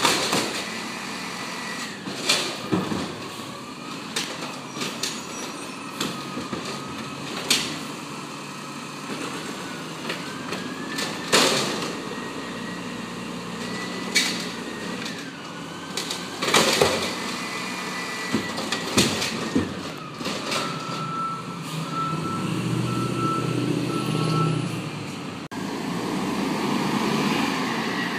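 Automated side-loader garbage truck collecting a recycling cart: the hydraulic arm whines as it lifts and lowers, with repeated sharp clanks and bangs of the cart shaken against the hopper. Near the end a short run of beeps sounds and the diesel engine revs up as the truck pulls away.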